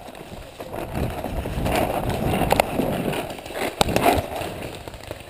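Bracken and branches brushing and rustling against someone pushing through them on foot, building after about a second and easing near the end, with a few sharp snaps in the middle.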